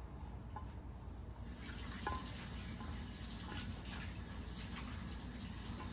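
A kitchen tap is turned on about a second and a half in and runs steadily. Over it come small clicks of a dog licking and chewing at food on a plate.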